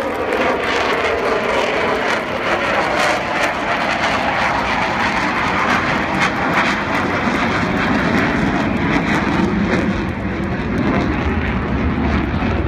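The four Rolls-Royce Olympus turbojets of the Avro Vulcan XH558 delta-wing bomber at high power on a low pass and climb-out, loud and continuous, with the sound growing deeper in the second half.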